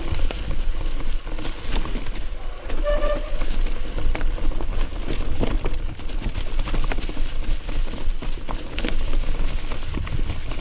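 Mountain bike clattering down a rough, rocky trail: a steady rumble of wind over the camera microphone with many quick knocks and rattles from the bike over stones and roots. A brief high-pitched tone cuts through about three seconds in.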